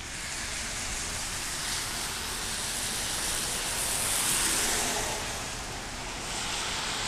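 A car's tyres hissing on a rain-wet road, swelling as it passes about four seconds in and fading again, over a steady background hiss.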